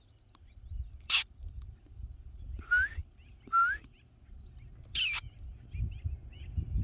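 Black-tailed prairie dogs calling: two short, sharp, loud barks about a second in and near five seconds in, with two softer rising calls between them, over a low rumble of wind on the microphone.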